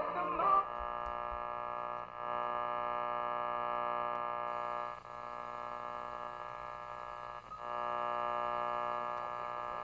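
Sound from a 1951 Silvertone AA5 tube clock radio's speaker as the dial is tuned across the AM band: a steady buzzing tone with many overtones, holding one pitch, that dips briefly about two, five and seven and a half seconds in.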